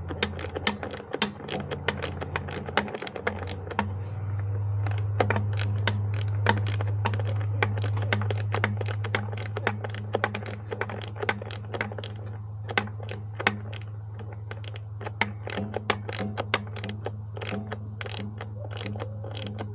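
Socket ratchet clicking rapidly, over and over, as T20 Torx screws are run into the plastic air filter cover of a motorcycle, over a steady low hum.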